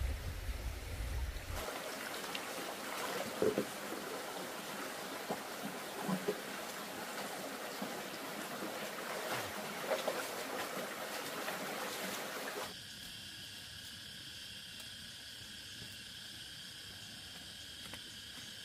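Trickling, splashing water with scattered small knocks. About thirteen seconds in it cuts off suddenly, giving way to a quieter steady high drone.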